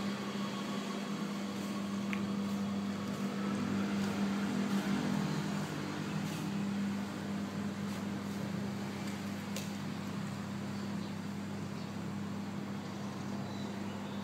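A steady low mechanical hum over a constant hiss.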